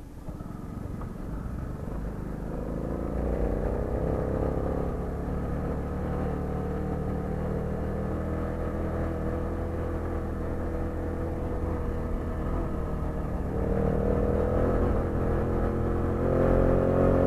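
Small gasoline engine of a motorized bicycle running under way, its level building over the first few seconds and rising again, a little higher in pitch, about two-thirds of the way in and near the end as the rider speeds up, over a low rumble of wind and road.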